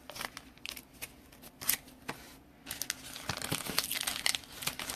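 Plastic crinkling and rustling with light clicks and taps as trading cards and their plastic packaging are handled, busier in the second half.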